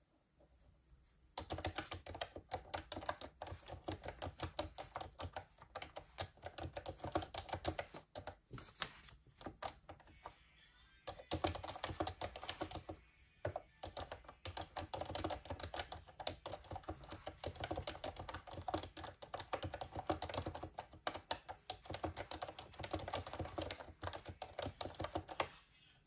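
Typing on a computer keyboard: rapid key clicks in long runs, starting about a second and a half in, with a couple of brief pauses midway.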